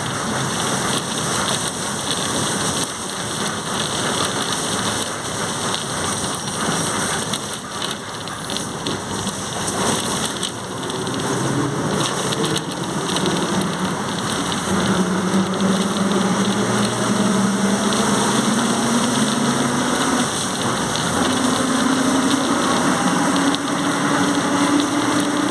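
Volkswagen 17.230 OD diesel bus under way: steady road and body noise with the transmission's loud drone. The drone is a humming tone that comes in about halfway through and rises slowly in pitch over the last ten seconds.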